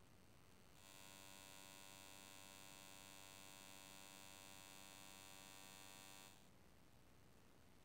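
Near silence, with a faint steady electrical buzz made of many even tones that comes in about a second in and cuts off suddenly about six seconds in.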